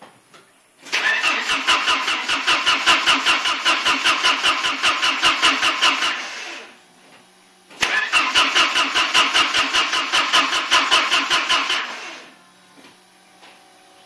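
1986 Porsche 951 (944 Turbo) turbocharged four-cylinder engine cranking on the starter in two long tries, about five seconds each, with an even chug of about six beats a second. It never catches: a no-start.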